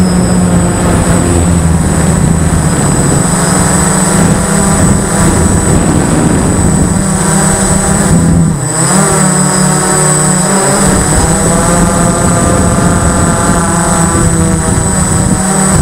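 A 3DX8 flying wing's motor and propeller running in flight, heard from its onboard camera as a loud, steady drone with a thin high whine above it. About eight seconds in the pitch dips briefly and then climbs back up as the throttle changes.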